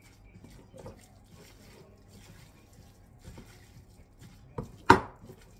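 Gloved hands mixing a moist filling of glass noodles and vegetables in a glass bowl, with faint soft mixing sounds. Near the end come two sharp knocks close together, the second much louder.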